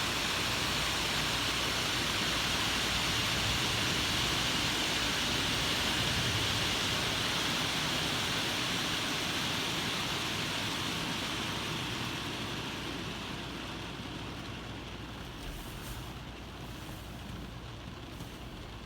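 Car wash running: a steady rushing hiss that fades away over the second half.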